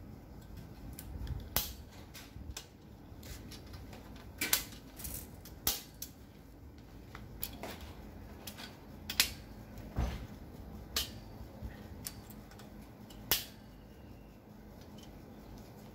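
End caps being pushed into the ends of the stainless-steel tubes of a retractable clothes hanger: irregular sharp clicks and taps, one every second or two, some louder than others.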